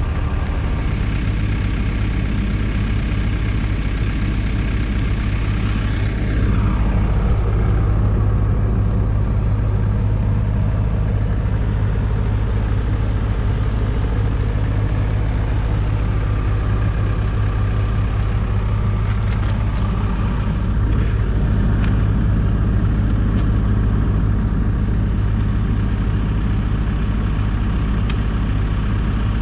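Diesel engine of heavy equipment running steadily, with a short falling whine and a slight rise in level about six seconds in, and a few light clicks around twenty seconds in.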